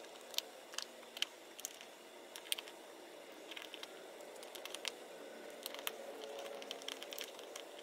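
Light, irregular clicks and taps of small nail-supply items, such as gel polish bottles and tips, being handled and set down.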